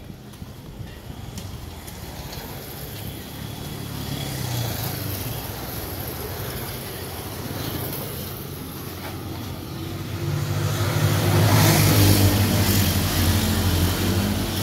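A motor vehicle's engine drawing near and passing close by, building over several seconds and loudest about twelve seconds in.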